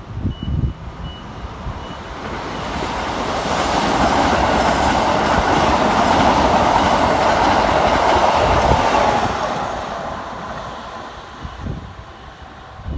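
Keikyu 2100-series electric train passing close by. The rolling noise of wheels on rail swells, holds loud for several seconds, then fades away.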